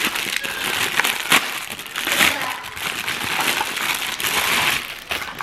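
Clear plastic wrapping crinkling as it is handled and pulled off a set of measuring cups, with a few sharp crackles.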